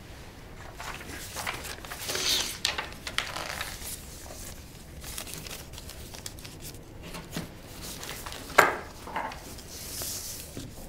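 Paper rustling and being handled, with a pen writing on paper as a document is signed at a desk. A single sharp tap about eight and a half seconds in is the loudest sound.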